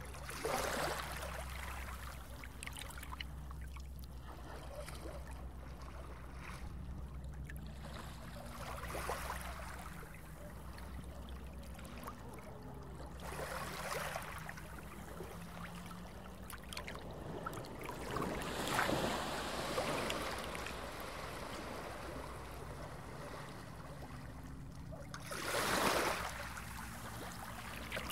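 Underwater ambience soundtrack: a steady low drone with swells of water noise every few seconds, about five of them.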